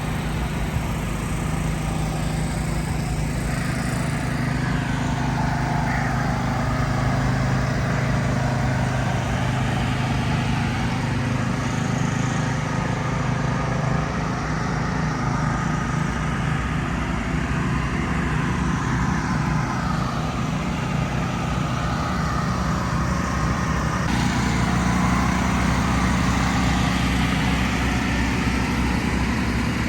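Steady drone of a running engine, holding a constant pitch with a noisy hiss above it.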